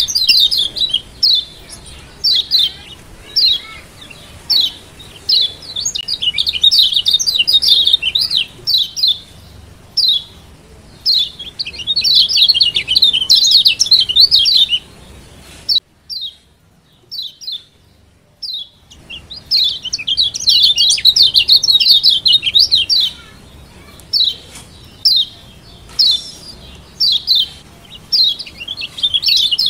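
Lombok yellow white-eye (kecial kuning, a Zosterops white-eye) giving rapid, high 'ciak' chirping calls in quick runs of notes, with a break of about three seconds past the middle.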